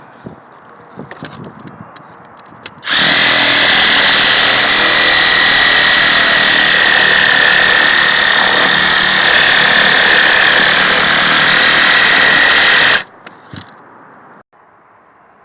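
A power tool running steadily at full speed for about ten seconds, starting abruptly a few seconds in and cutting off sharply near the end, with a steady high whine over its noise.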